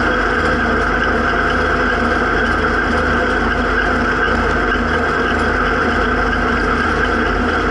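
Zetor 7340 tractor's four-cylinder turbo diesel engine running steadily while driving along, heard from inside the cab.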